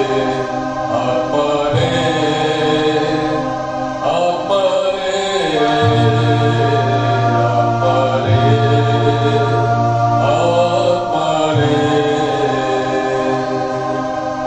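A slow devotional hymn sung by a choir, each note held for two to four seconds over a steady low accompanying tone.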